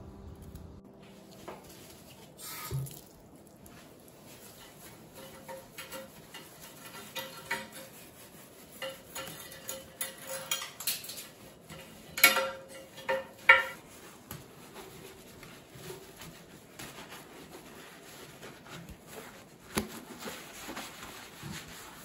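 A scrub pad wipes a wet glass shelf and a porcelain sink in a tiled bathroom, with scattered light taps and clicks. A few sharp clinks come about halfway through.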